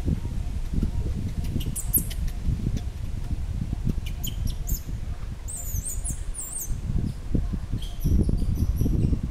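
Wind rumbling on the microphone, with small birds giving high, twittering chirps in several short bursts.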